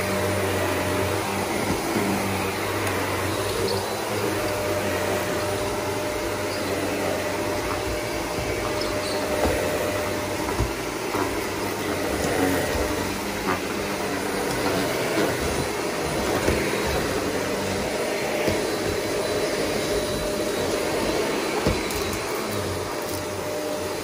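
Shark upright vacuum cleaner running steadily as it is pushed over a woven rug and a wooden floor, with a faint steady whine and a few light knocks along the way.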